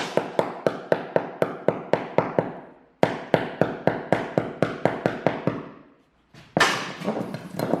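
Hammer tapping quickly and evenly, about three or four light blows a second, setting something in at a wall hole so that it sits flush for plastering. The tapping comes in two runs with a short break between them, and a different, steadier noise starts near the end.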